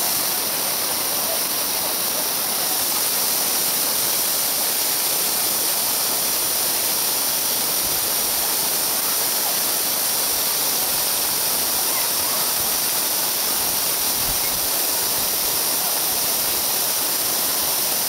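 Water at the second tier of Erawan Falls pouring into the swimming pool, a steady rushing hiss.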